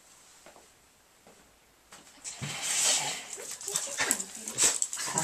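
Excited pit bull-type dog making noises close by: after a quiet start, from about two seconds in, a dense run of short noisy bursts mixed with brief pitched sounds.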